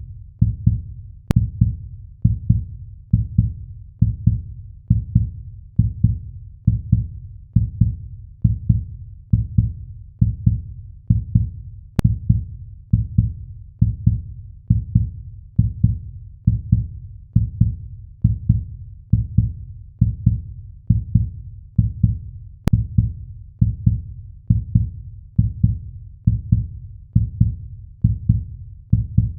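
A heartbeat sound effect: deep, low thumps in a steady lub-dub rhythm, about one beat a second.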